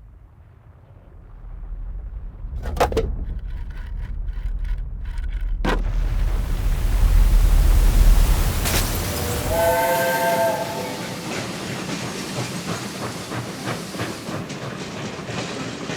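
Cartoon train running, its low rumble building, with a couple of sharp clicks and one whistle blast held for about a second and a half about two-thirds of the way through, then a steady rattle of the wheels.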